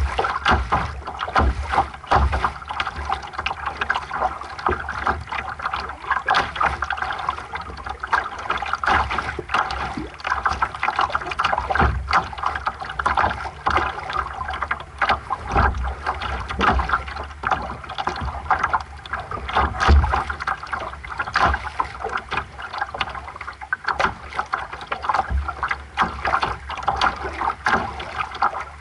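Water splashing and lapping against the hull of a small sailing dinghy under way, an irregular patter of small slaps, with gusts of wind rumbling on the microphone now and then.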